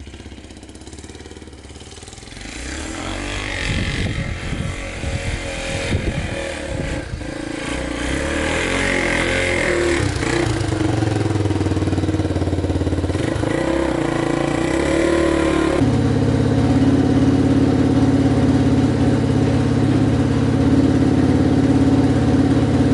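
Honda XL250S single-cylinder four-stroke dual-sport engine being ridden through deep snow. It gets louder about three seconds in and revs up and down unevenly, then holds a steadier note, changing pitch abruptly about two-thirds of the way through.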